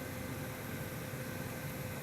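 Steady whir of a running desktop computer's fans, with a low hum and a faint steady whine.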